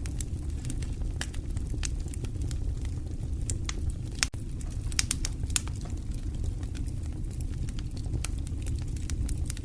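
Fire burning in a fireplace: a steady low rumble of flames with irregular sharp crackles and pops, a few louder pops between about four and six seconds in.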